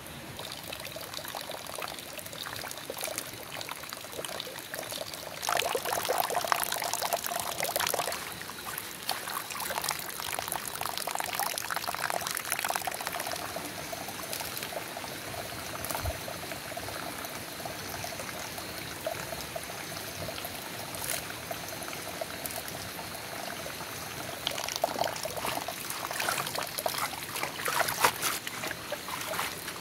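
Water running in a thin stream into a plastic basin, with louder bursts of splashing as leafy greens are swished and rinsed by hand, about six to eight seconds in and again near the end.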